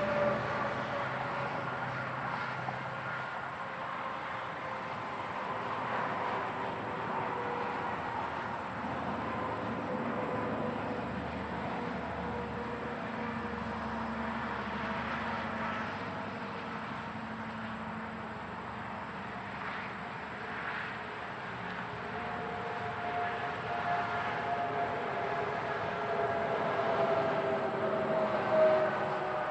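Close-up interstate highway traffic: a steady wash of tyre and engine noise from passing cars and trucks, with tyre whines sliding slowly down in pitch as vehicles go by. One vehicle passes loudest near the end.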